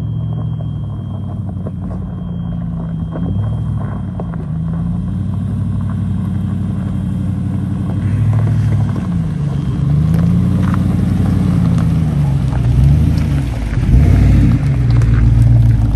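Chevrolet Silverado pickup's engine pulling up a rocky dirt trail. Its pitch rises and falls repeatedly with the throttle, and it grows louder as the truck comes close. Tyres crackle over gravel and rocks in the second half.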